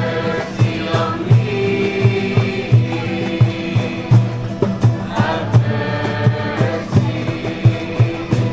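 Music: a song with singing voices over a steady beat and a bass line.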